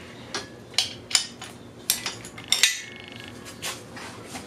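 Metal tools and engine parts clinking and knocking against each other, several separate sharp clanks, with a short high rattling buzz about three seconds in.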